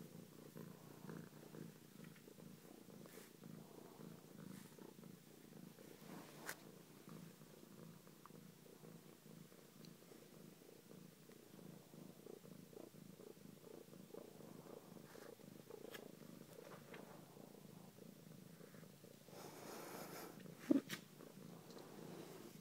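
Domestic cat purring softly and steadily, close to the microphone. Near the end comes a brief rustle with one sharp tap.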